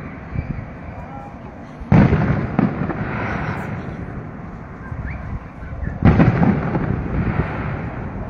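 Aerial fireworks bursting at a distance: two loud booms, about two seconds in and again about six seconds in, each trailing off in a rolling rumble, with smaller pops and crackles between.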